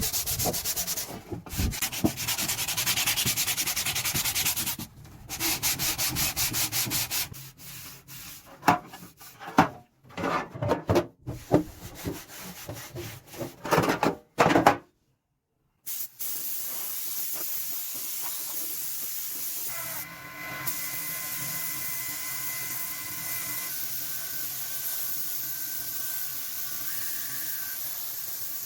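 Hand sanding of the metal toolbox, rapid back-and-forth strokes that turn slower and uneven about halfway through the first half. After a sudden second of silence, a steady hiss takes over for the rest.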